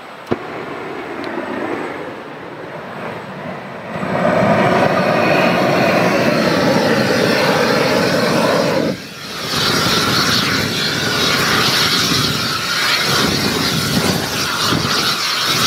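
Propane weed-burner torch burning: a sharp click just after the start and a lower flame for a few seconds. From about four seconds in it turns into a loud steady rushing hiss as the flame is driven into the brush pile. It drops out briefly around nine seconds in, then comes back.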